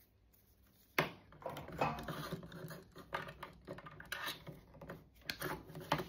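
Handling a freshly stripped length of 2.5 mm² twin-and-earth cable: scattered small clicks and scratches of the copper conductors and plastic sheath, starting about a second in.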